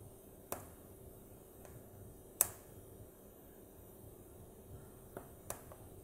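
Wood fire crackling in a fireplace: a handful of sharp pops from the burning logs, the loudest about two and a half seconds in and two quick ones near the end, over a faint steady hiss.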